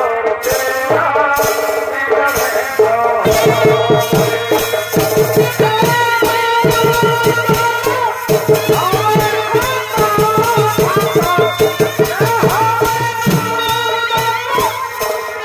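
Chhau dance music: a high, wavering reed-pipe melody over fast drumming that grows denser about three seconds in.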